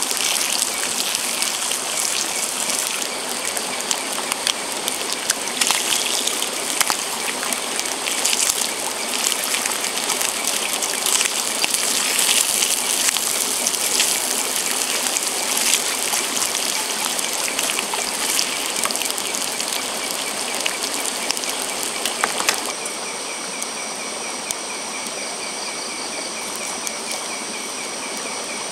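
Bacon sizzling and spitting in a pan over a wood fire, a dense hiss full of sharp pops. About three-quarters of the way through the sizzle drops away to a quieter steady hiss with insects chirping in a high, even pulse.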